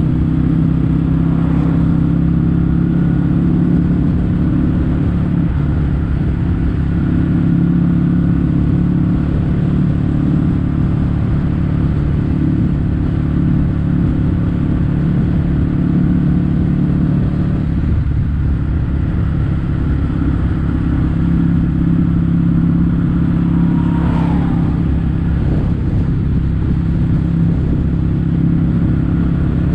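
Kawasaki W800's parallel-twin engine running steadily at cruise through Yamato stainless-steel Cabton-style silencers. The exhaust note eases off about eighteen seconds in and picks up again a few seconds later.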